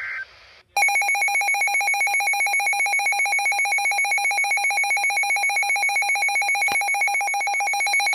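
Emergency Alert System attention signal: a loud, steady two-tone alert with a fast pulsing flutter. It starts just under a second in, right after a short gap that follows the end of the warbling digital header burst, and lasts about seven seconds.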